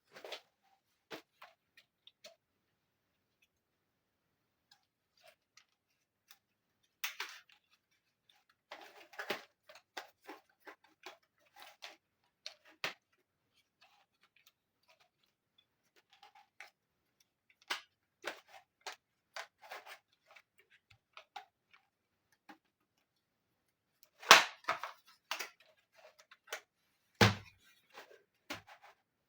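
Small plastic clicks, taps and light rustles of miniature dollhouse furniture pieces being handled and set in place, in scattered clusters with silent gaps between; a heavier knock near the end.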